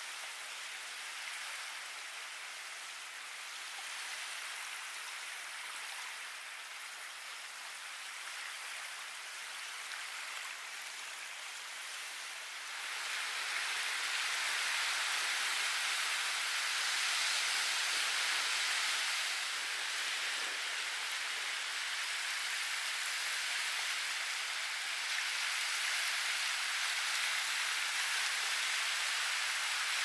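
Sea surf washing onto a sandy beach as a steady hiss of water, with no separate wave crashes standing out. It gets suddenly louder a little before halfway through.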